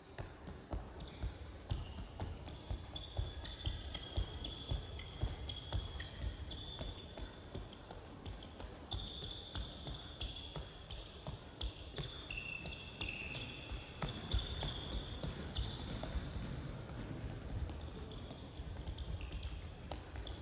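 Sneakers squeaking and footsteps landing on a sports-hall floor during quick side-steps against a resistance band: many short knocks and brief high squeaks that keep coming and going.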